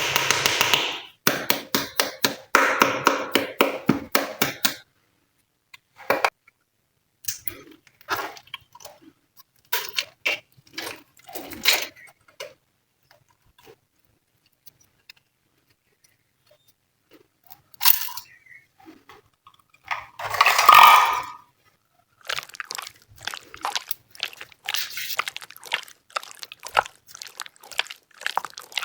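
Glossy slime being pressed, stretched and folded by hand: runs of sticky clicks and squelches. The clicks thin out in the middle to a near pause, and a louder squish comes about twenty seconds in.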